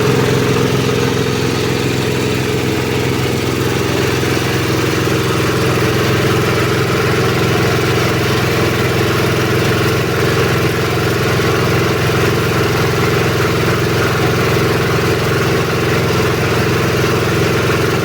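Multipurpose shredder-grinder machine running steadily, its drive engine giving a constant hum with no change in speed.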